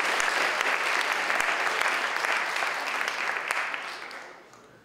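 Audience applauding: a dense patter of many hands clapping that dies away in the last second or so.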